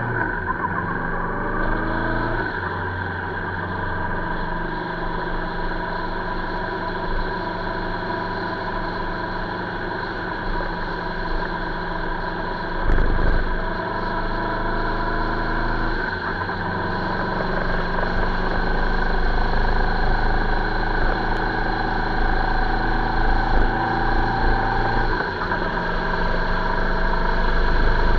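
Vehicle engine running under way, a steady drone whose pitch drifts slowly with speed and rises somewhat in the second half. About halfway through there is a brief, louder noisy burst.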